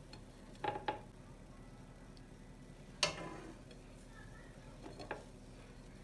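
Dishes handled on a kitchen counter: two light knocks, then a sharp clink with a short ring about three seconds in, and a few softer taps near the end.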